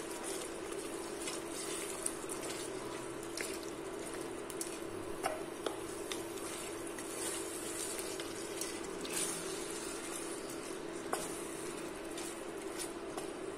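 Wooden spoon stirring a thick curry with peas in a stainless steel pot: soft scrapes and scattered light taps against the pot and the liquid sauce, over a steady low hum.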